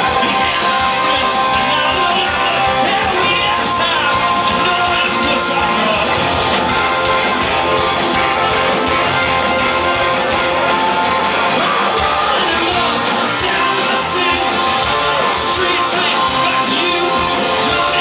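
Live rock band playing loud and steady: guitars, drums, keyboard and horns, with a man singing.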